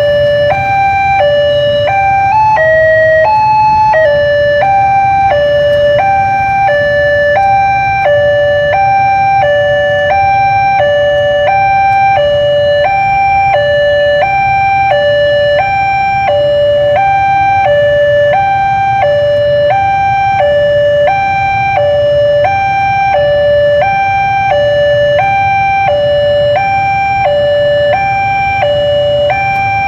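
Railway level-crossing electronic warning alarm sounding a steady two-tone hi-lo pattern, about four high-low pairs every three seconds, with the tones briefly shifting higher about three seconds in. It signals that a train is approaching and the crossing is closed.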